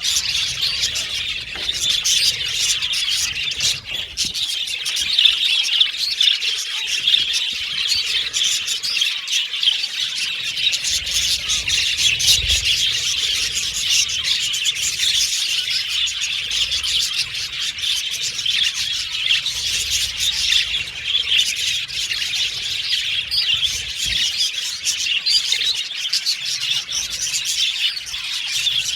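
A colony of budgerigars chattering continuously: many overlapping warbles, chirps and short squawks at once.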